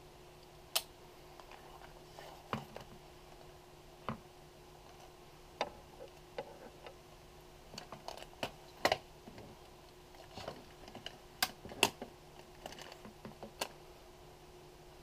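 Scattered sharp clicks and light knocks from a Polaroid 180 folding camera being handled in its hard case: the metal body and case parts knocking, and the front pulled out on its bellows and scissor struts.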